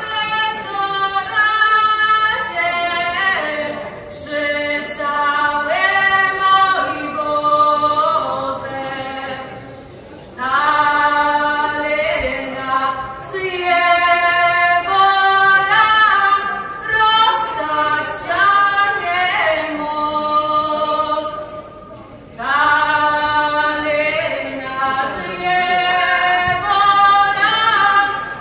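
A woman singing a Kurpian forest song (pieśń leśna) solo and unaccompanied into a microphone, in long held notes, with short breaks between phrases about ten and twenty-two seconds in.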